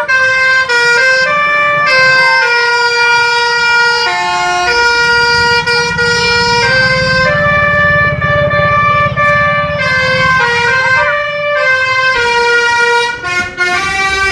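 Indonesian 'telolet' bus horn, a multi-trumpet musical air horn, playing a tune of held notes that change about every half second, over the low rumble of the bus engine.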